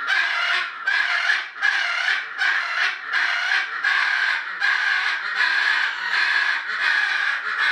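Hyacinth macaw calling over and over with loud, harsh squawks, about three calls every two seconds.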